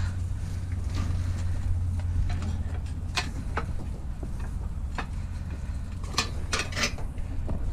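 Pieces of scrap metal clinking and clanking as they are shifted and packed into place, a few sharp knocks at a time, over a steady low hum.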